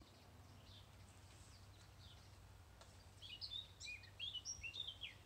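A songbird singing outdoors over a faint steady background hum: a few soft chirps, then a quick run of short chirps and whistles about three seconds in.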